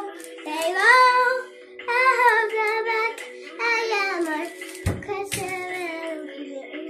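A child singing a song in long, sliding phrases, with a single low thump about five seconds in.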